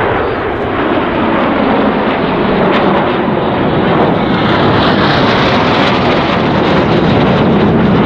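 Several L-39 Albatros jet trainers flying past in formation: a loud, steady rush of turbofan jet noise that grows brighter about halfway through as the jets come nearer.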